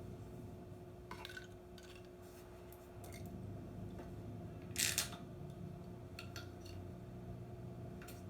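Brittle objects crackling and crunching as a car tyre rolls over them, in a few scattered cracks with one louder crunch about five seconds in, over a low steady engine hum.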